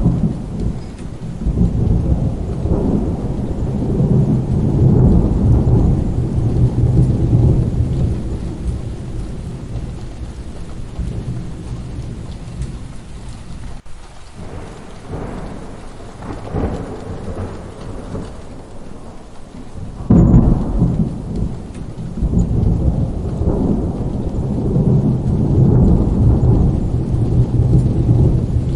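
Steady rain with rolling thunder: long low rumbles fade through the first third, and about two-thirds of the way in a sharp thunderclap sets off another long rumble that runs on.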